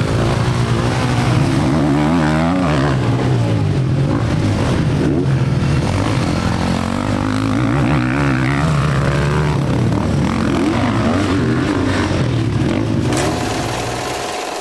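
Several motocross bikes racing, their engines revving up and down over one another. The engines fade somewhat near the end.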